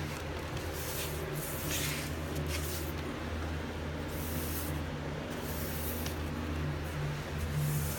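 Paintbrush strokes swishing as primer is brushed onto old wood, roughly one stroke a second at an uneven pace, over a steady low hum.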